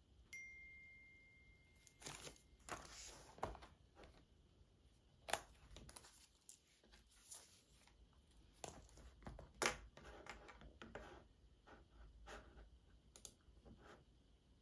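Faint desk sounds: a pen writing and notebook pages rustling as they are turned, with scattered soft clicks that turn into light typing on an Apple Magic Keyboard near the end.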